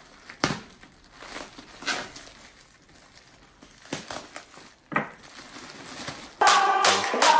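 Plastic packaging wrap crinkling and rustling in irregular crackles as a parcel is torn open by hand. In the last second electronic music starts suddenly and is louder than the crinkling.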